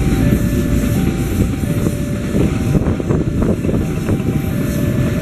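Container freight train running past, its wagons rumbling and the wheels knocking over the rail joints. Over it the level crossing's electronic warning alarm sounds from the loudspeaker on the signal post: two tones, high and low, alternating about every half second to second.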